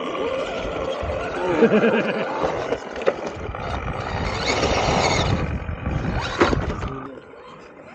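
1/10-scale RC rock crawler driving over quarry rock: its small electric motor and gears running under load while the tyres scrabble and stones crunch, with a couple of sharp knocks. It goes quieter about seven seconds in.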